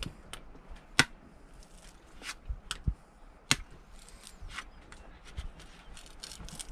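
A heavy knife chopping into a coconut's husk, a series of irregular sharp chops, the loudest about a second in.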